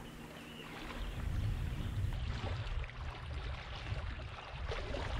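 Fast-moving river water rushing past a canoe close to the surface, with a low rumble that grows about a second in.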